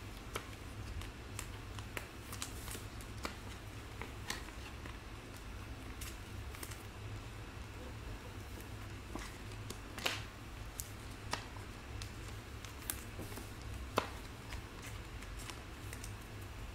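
Select Soccer trading cards handled and flipped one behind another, giving scattered light clicks and snaps of card edges, the sharpest about ten and fourteen seconds in, over a low steady hum.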